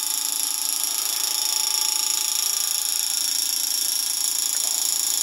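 Miniature Stirling hot-air engine running fast on its burner flame: a steady, high-pitched whirring buzz.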